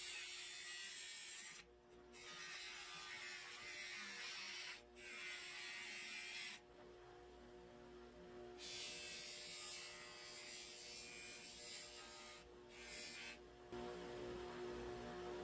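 Bench buffer motor running with a steady hum, while a small metal part is pressed against the spinning cloth buffing wheel, giving a hissing rub that comes and goes in several stretches with short breaks as the part is lifted off and turned.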